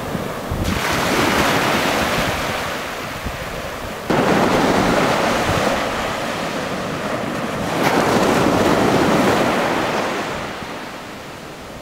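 Small waves breaking and washing up a sandy beach: three surges of surf one after another, the last fading away near the end.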